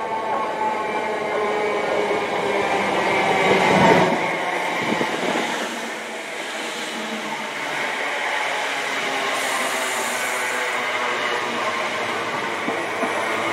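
Class 317 electric multiple unit running into the platform, its rush of wheel and motor noise loudest about four seconds in. The deep rumble then drops away and a modern electric multiple unit is heard at the platform with a steady electric whine, and a short high hiss near the middle.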